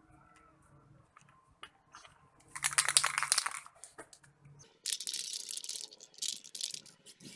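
Aerosol spray-paint can hissing in three short bursts as paint is sprayed onto the box, with a few light clicks before the first burst.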